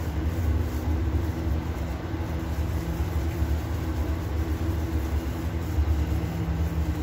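Steady low machine hum, a constant drone holding the same pitches throughout.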